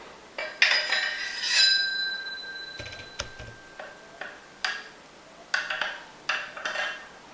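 Metal parts clinking and knocking together, one strike leaving a ringing tone that hangs for about two seconds, then a run of lighter clinks.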